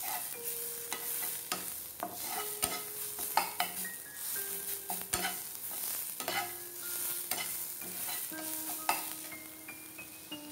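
Steel spatula stirring and scraping grated bottle gourd frying in ghee in a non-stick pan: soft sizzling with irregular clicks and scrapes of the spatula against the pan. The gourd is being sautéed until it turns light brown.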